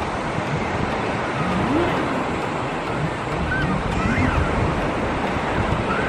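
Low surf washing onto a shallow sandy beach: a steady rushing wash, with wind buffeting the microphone. Faint voices of people on the beach come through now and then.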